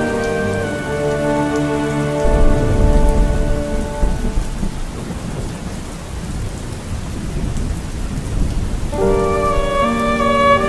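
Steady rain falling, with a long deep rumble of thunder that starts about two seconds in and slowly dies away. Soft sustained music fades out early and new music enters near the end.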